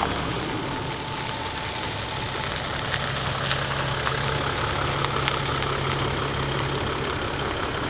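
Vehicle engine running with a steady low drone over even road or engine noise.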